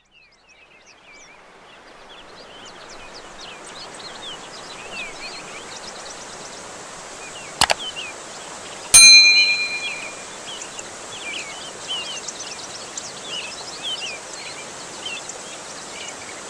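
Outdoor ambience of many small birds chirping over a steady hiss, fading in over the first few seconds. A click comes about seven and a half seconds in, then a single loud metallic ding about nine seconds in that rings out for about a second.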